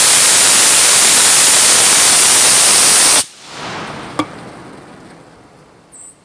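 Loki Research M-1378 54 mm solid rocket motor (Loki Red propellant) firing on a static test stand: a loud, steady rushing noise of the exhaust that cuts off sharply at burnout about three seconds in. Then a single sharp pop and a fading hiss as flame sputters at the nozzle from leftover propellant slivers.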